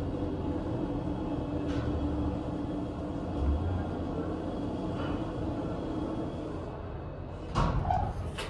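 Subway train rumbling through the station: a steady low rumble and hum, with a couple of sharp knocks near the end.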